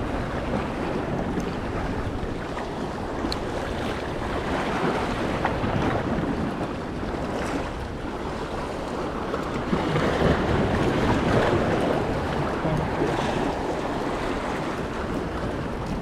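Waves washing against a rock breakwall, with wind noise on the microphone; a wave surges louder about ten seconds in.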